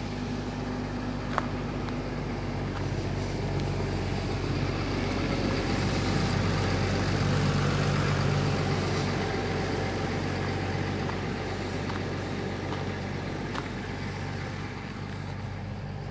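Road traffic: a motor vehicle's engine drone building up, loudest about halfway through, then fading away as it passes.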